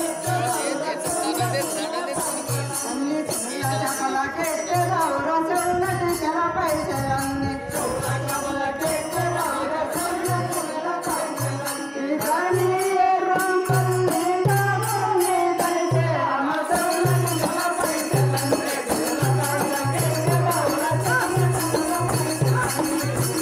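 Live stage-drama accompaniment: a drum beating a steady rhythm, with jingling cymbals or bells and a wavering melody line over it, getting a little louder about halfway through.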